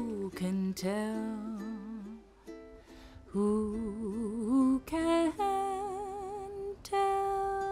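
A woman singing a slow, wordless melody with strong vibrato over a light plucked-string accompaniment, ending on a long held note about seven seconds in.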